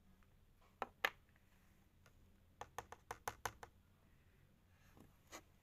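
Light, sharp plastic clicks and taps from handling a watercolour paint tub and its lid: two about a second in, a quick run of about seven around three seconds in, and one more near the end.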